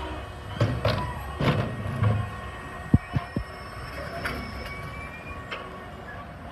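Electric side-loading garbage truck emptying a wheelie bin with its automated arm: a series of clunks and knocks as the bin is shaken out and lowered back to the kerb, followed by a faint rising whine from the electric drive as the truck moves off.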